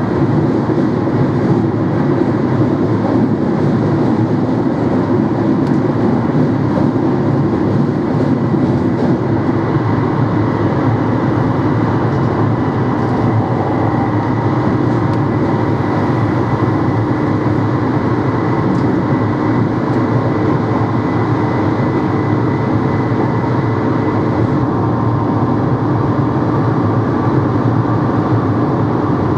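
NMBS/SNCB AM96 electric multiple unit running, a steady drone of motors and rails. A thin high whine over it cuts off about 25 seconds in.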